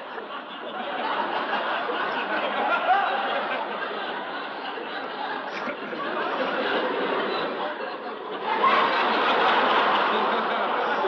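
A crowd laughing together, many voices of chuckles and giggles running on, swelling louder about eight and a half seconds in.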